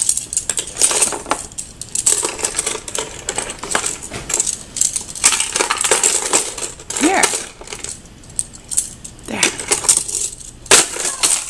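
Hard plastic baby toys on an exersaucer rattling and clacking in quick, irregular clicks as they are grabbed and shaken.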